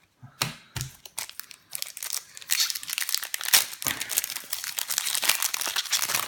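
Crinkly packaging of Pokémon card packs being handled and torn open. A few light knocks come in the first second or so, then about four seconds of dense crinkling and crackling.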